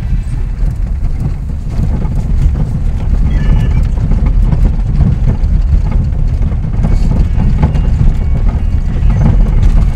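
Car driving on a dirt road, heard inside the cabin: a loud, steady low rumble of tyres and body on the rough surface, with small knocks and rattles now and then.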